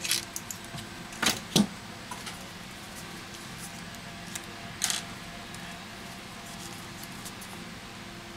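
Hands handling the plastic frame and display parts of a smartphone under repair: a few sharp clicks and knocks in the first two seconds and one more about five seconds in, over a steady faint hum.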